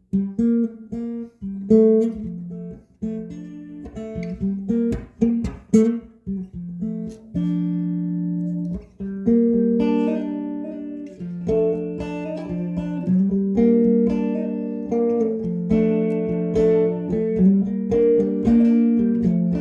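Electric guitar fitted with Seymour Duncan Zephyr humbucker pickups, played as a pickup demo: short picked notes and phrases, then notes and chords left ringing from about halfway through.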